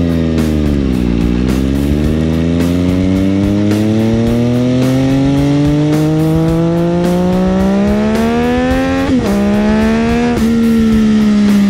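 Sport motorcycle engine heard onboard: it dips briefly off the throttle, then pulls in one long rise in pitch lasting several seconds. Near the end come two quick upshifts, each a sudden drop in pitch.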